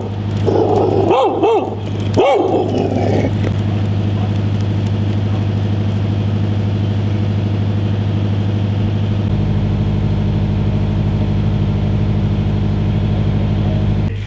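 A dog barking a few times over a steady mechanical hum, as of a motor running. The hum deepens about nine seconds in.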